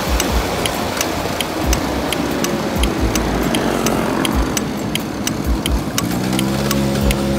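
Small moped engine running while riding, with wind and road noise and a regular ticking about three times a second.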